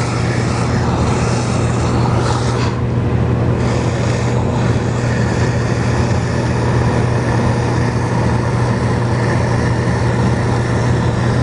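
Water from a garden hose wand pouring into a plastic 5-gallon bucket, topping up fertilizer solution: a steady rush of water with a low, steady hum under it.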